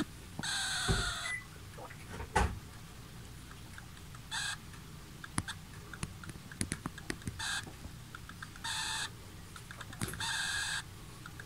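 An insulated water bottle squeaking in short chirps like a clucking chicken as air squeezes in or out past its lid. About five squeaks come at irregular gaps, with faint ticks between them.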